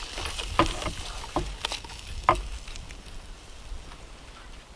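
A wing being cut and torn off a spit-roasted turkey with a knife: a few sharp cracks and crackles as the crisp skin and joint give way.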